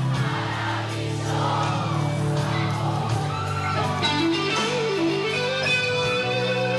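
Live rock band playing: held chords underneath, with an electric guitar lead line that bends and wavers in pitch from about halfway through. Crowd voices join in during the first couple of seconds.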